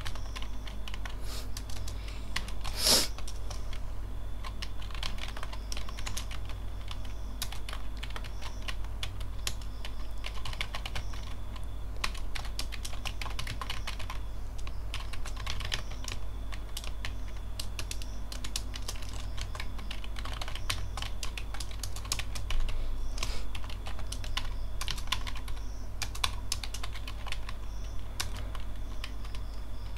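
Typing on a computer keyboard: irregular runs of keystroke clicks, with one louder click about three seconds in, over a steady low hum.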